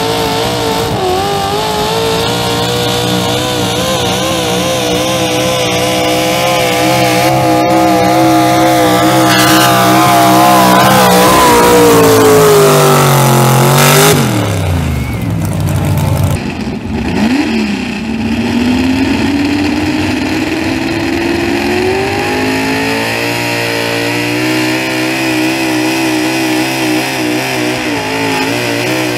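Street stock pickup truck engine running hard as it pulls a weight-transfer sled, growing louder for the first half. About halfway through its pitch falls sharply, then an engine revs up again and runs steadily.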